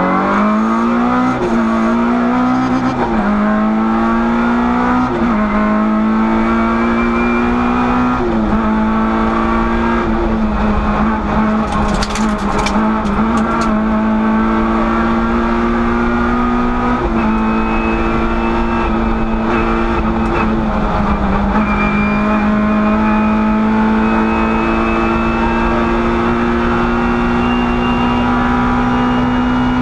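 Rally car engine heard from inside the cockpit, accelerating hard through the gears: the pitch climbs and drops at each of about six upshifts, then holds at high revs at speed. A brief clatter about twelve seconds in.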